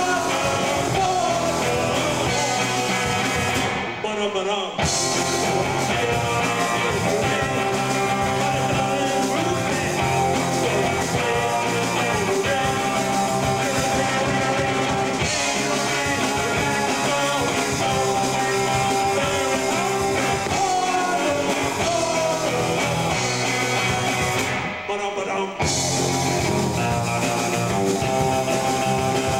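Rock band playing loud, distorted music on electric guitars, bass and drums.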